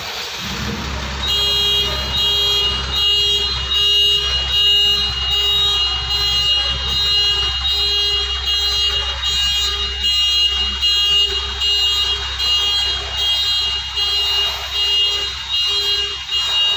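Electronic warning beeper sounding an even, repeating beep about twice a second, over a steady low rumble.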